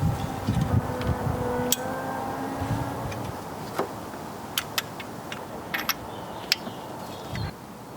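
Several sharp metallic clicks at irregular intervals, from a torque wrench and socket tightening cylinder head nuts on a Volvo B230 engine during the 60 Nm stage. A steady background hum runs underneath.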